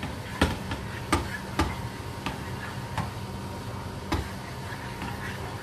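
Wooden spoon stirring a sauce in a nonstick frying pan, knocking against the pan about six times over a steady low hum.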